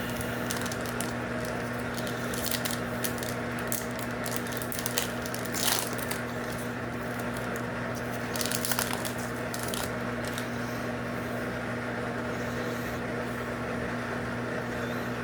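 Foil Yu-Gi-Oh booster pack crinkling as it is torn open and the cards handled: scattered rustles and crackles, loudest about six and nine seconds in, over a steady low electrical hum.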